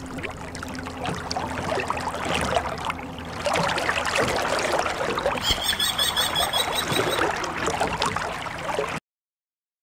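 Water sound effect, splashing and lapping, that gets louder about three seconds in and cuts off abruptly near the end.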